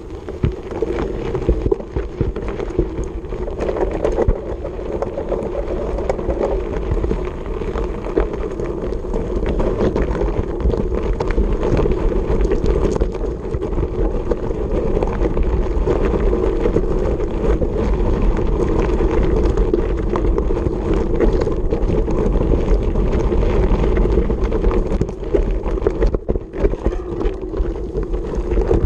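Mountain bike rolling down a rocky gravel trail: tyres crunching and the bike rattling over stones, with steady wind noise on the action camera's microphone.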